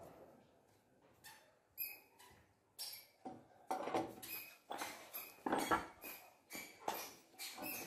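Clutch drum with sprocket being worked onto a small engine's crankshaft by hand: a run of short metallic scrapes and clinks. One, about two seconds in, rings briefly; from about three seconds in they come faster and louder.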